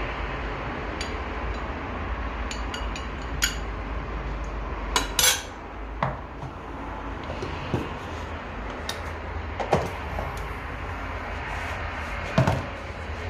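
Metal utensil knocking and clinking against a pan while the risotto is worked, in irregular strikes a second or two apart, over a steady hiss and hum.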